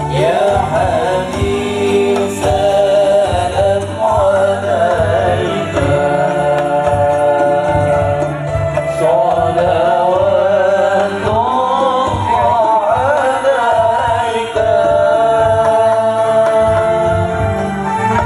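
Music: a singer's wavering, ornamented vocal line over steady held keyboard-organ tones and a low beat.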